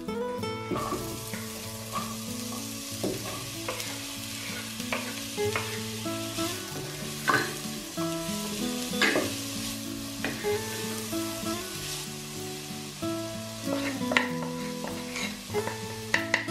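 Garlic and then diced onion sizzling in oil in a non-stick pot, stirred with a wooden spatula that scrapes and knocks against the pan now and then. Soft background music with held notes plays underneath.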